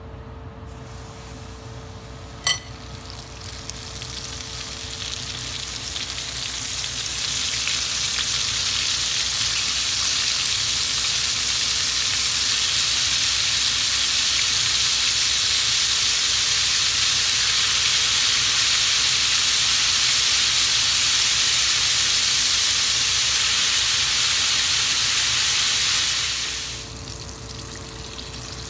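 Battered octopus tentacles deep-frying in hot oil in a pan. A single sharp metal clink comes about two seconds in. Then the sizzle swells over a few seconds as the pieces go into the oil, holds loud and steady, and falls away quickly near the end.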